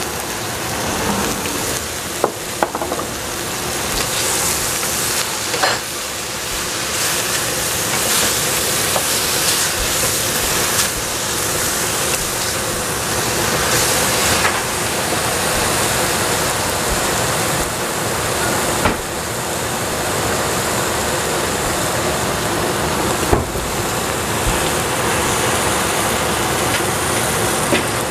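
Diced eggplant sizzling steadily as it fries in oil in a stainless steel pot while it is stirred with a wooden spatula, with a few sharp knocks against the pot.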